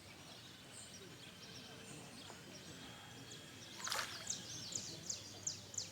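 A bird calling with a quick series of short, high, falling chirps, about two or three a second, starting about four seconds in, just after a single sharp click. Before that, only a faint outdoor background.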